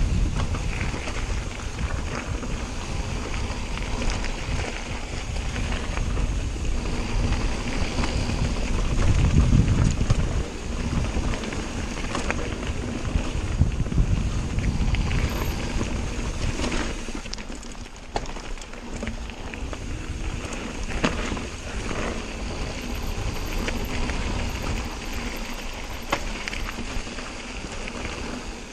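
Cotic Flare mountain bike descending a gravel forest trail at speed: wind buffeting the camera microphone as a heavy rumble, with tyres on loose dirt and frequent sharp knocks and rattles from the bike over bumps. The rumble eases somewhat about two-thirds of the way through.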